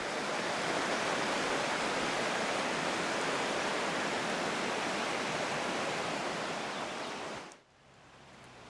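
Steady rushing of a fast mountain river, an even whoosh that cuts off suddenly about seven and a half seconds in, leaving only faint outdoor hiss.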